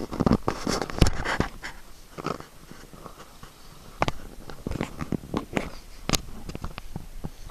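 Irregular knocks, clicks and rubbing from a toddler's hands grabbing and pawing at the camera, with a few short louder bursts in the first second or so.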